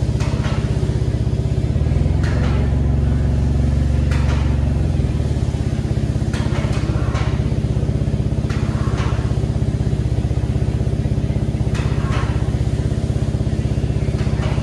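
A motor running steadily with a loud low hum while the fibreglass deck is lifted off its mould, with a few short sharp clicks or cracks every couple of seconds, some in quick pairs.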